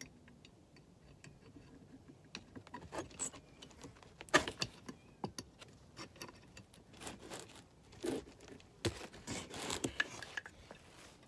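Small metal brake parts clinking, clattering and scraping as they are handled and tried in place, in scattered short bursts with a sharper clack about four seconds in.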